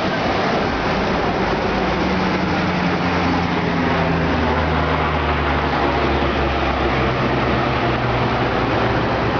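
Flash-flood water rushing steadily, with a low hum underneath through the middle seconds.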